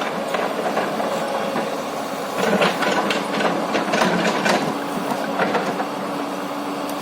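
Hyundai hydraulic excavator's diesel engine running steadily while it works, with a series of sharp knocks from about two and a half seconds in.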